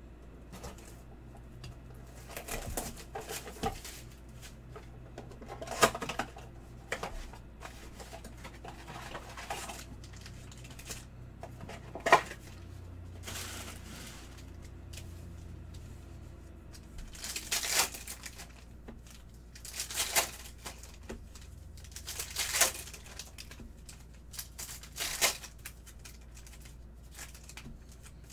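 Unboxing a Panini Prizm basketball blaster box: a utility knife slits the plastic wrap and the cardboard box is opened. Its foil card packs are then crinkled and torn open and the cards handled. The sounds come as scattered bursts of rustling and tearing, with one sharp click about twelve seconds in.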